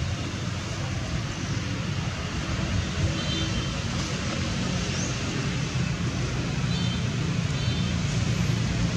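A steady low rumble, like wind on the microphone or distant traffic, with faint short high chirps twice, about three seconds in and again near the end.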